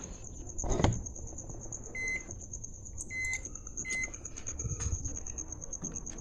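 A microwave oven's keypad beeping three times, about a second apart, as the oven is set to run a heating test with a cup of water; a single knock sounds just before, about a second in.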